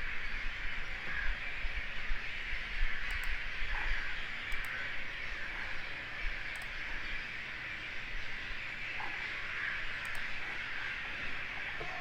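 Steady background hiss from the recording microphone, with a few faint, short clicks scattered through it, the kind a computer mouse makes while selecting items in CAD software.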